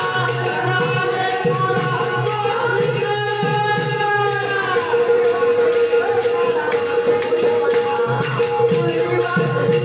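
A gavlan, a Marathi devotional folk song, sung by a solo voice over a steady held drone note, with jingling hand percussion and drum strokes keeping an even beat.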